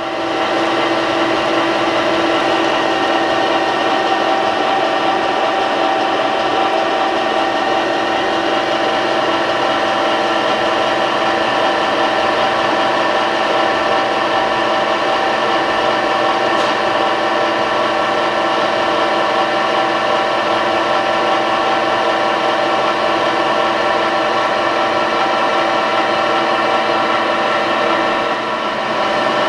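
Electric paint mixer running steadily, its vertical stirring shaft turning through boiled linseed oil as Prussian blue pigment is mixed in. The motor gives a constant hum and whine that dips slightly near the end.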